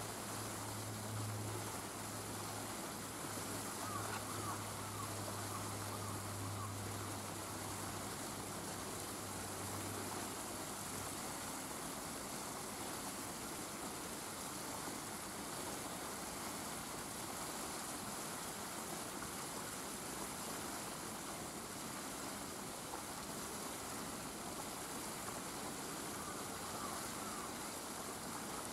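Steady outdoor background noise, an even rushing like distant water or wind, with a low steady hum that stops about eleven seconds in.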